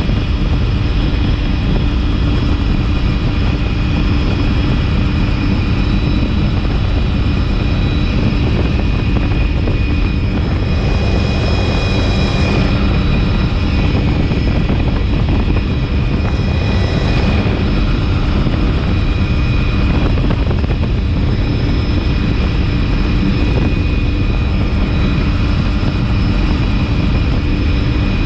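Helicopter in flight, heard from on board: a steady high turbine whine over dense, loud rotor and engine noise, with two brief swells of rushing air around the middle.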